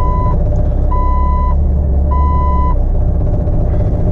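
Jeep Wrangler TJ's dashboard warning chime beeping three times, evenly spaced about a second apart, then stopping about three seconds in, over a steady low rumble.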